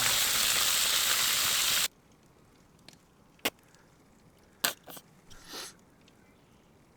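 Food frying with a steady sizzle that cuts off abruptly about two seconds in. After that there is near quiet with a few light clicks and knocks.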